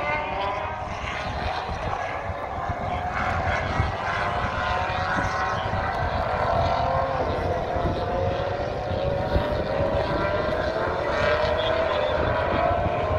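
Race car engines droning at a distance as cars lap the circuit, several engine notes overlapping, with one climbing slowly in pitch over the second half as a car accelerates. Wind buffets the microphone underneath.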